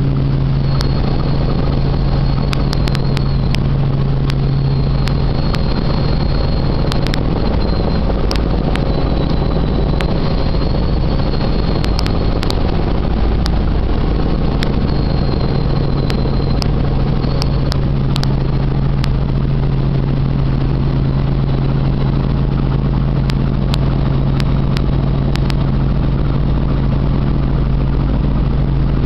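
Helicopter in flight heard from inside the cabin: a loud, steady drone of engine and rotors with a deep rumble underneath and a faint high whine. Scattered light clicks come through over it.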